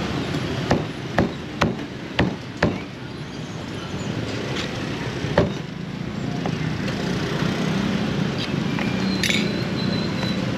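A meat cleaver chopping roast meat on a wooden block: five sharp chops about two a second, then a single chop a few seconds later, over steady street-traffic noise.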